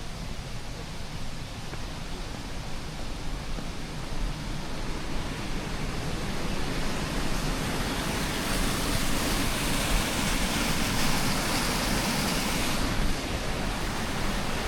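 Rushing water of a small waterfall, a steady hiss that grows louder through the middle and drops back a little near the end.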